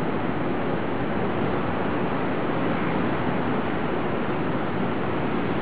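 Steady, even rushing noise with no distinct events: a distant electric train running along an elevated viaduct, blended with the general hum of the city.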